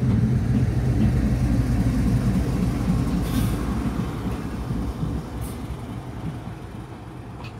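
WDG4G (GE Evolution series) diesel-electric locomotive running light past the platform at close range, its diesel engine giving a steady low drone that grows gradually fainter over the last few seconds.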